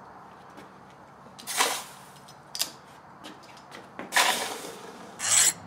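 Two brief sloshing swishes, a couple of seconds apart, as a hot leaf-spring steel blade is worked in a tub of quench water. Near the end a file begins rasping across the blade, testing whether the steel has hardened.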